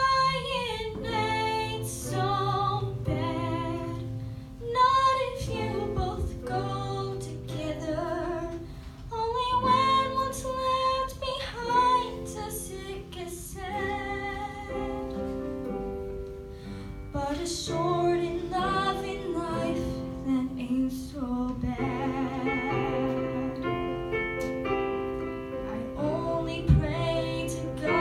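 A young female singer performing a musical-theatre song into a microphone, over instrumental accompaniment.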